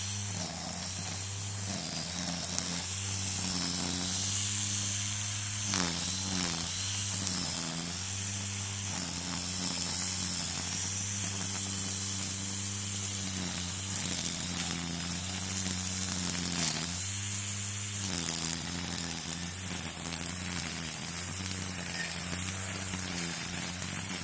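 String trimmer (weed eater) running steadily, its pitch dipping and recovering briefly about six seconds in and again about seventeen seconds in.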